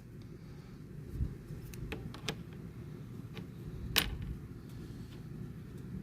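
Light clicks and taps of small metal parts being handled and set down while looking for a trigger pin, about six in all, with one sharper click about four seconds in, over a steady low background rumble.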